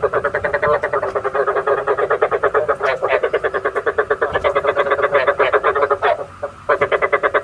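Frog calling as a decoy for frog trapping: a fast, even train of croaks at about ten a second, breaking off briefly about six seconds in and then starting again.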